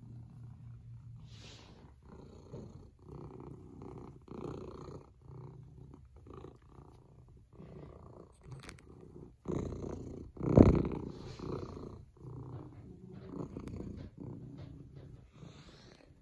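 Domestic cat purring up close, in a steady rhythm of breaths. About ten seconds in, a loud, short bump or brush sounds right at the microphone.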